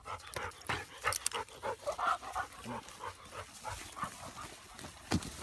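Tracking dog panting, with irregular crunches and rustles of feet moving through dry pine straw.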